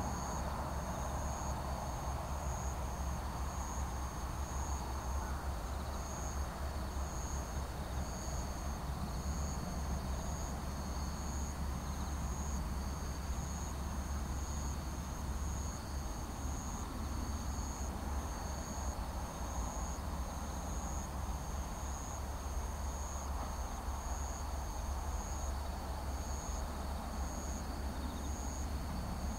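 Insects chirping in a steady pulsing rhythm, about one pulse a second, over a low steady rumble from the engines of a distant Airbus A380 on final approach.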